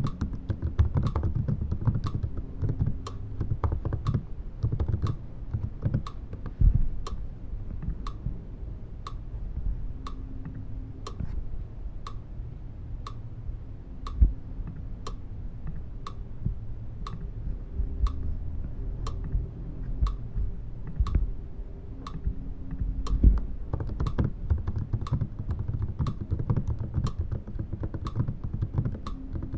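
Fingers typing on a computer keyboard, irregular keystrokes running throughout, over a steady, even ticking about twice a second.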